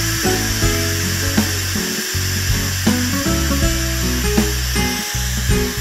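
Instant Pot Duo Evo Plus pressure cooker venting steam through its release valve in a quick release of the remaining pressure after cooking: a steady hiss, with background music under it.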